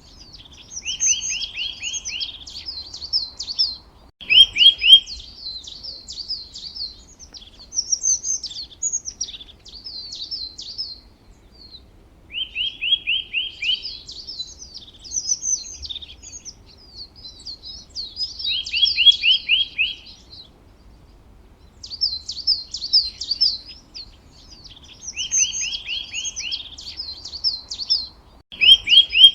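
A songbird singing the same song over and over: quick high twittering followed by a short run of about five lower, even notes. Each phrase comes every five to seven seconds, with short pauses between.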